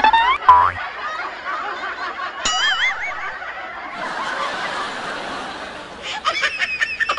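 A woman snickering and laughing, mixed with edited-in cartoonish sound effects: a rising pitch glide at the start, a wobbling tone about two and a half seconds in, and a quick run of clicks near the end.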